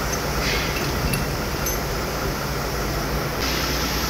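Steady mechanical hum with a few faint metallic clinks in the first couple of seconds as parts are handled on the truck engine's open cylinder head; the background noise brightens abruptly near the end.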